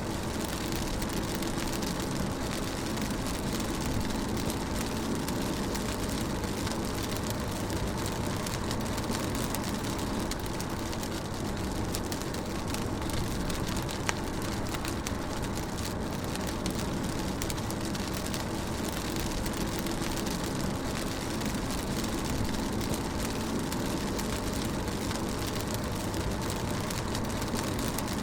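Rain pattering on a car's roof and windscreen while the car is driving, over a steady low rumble of engine and road noise.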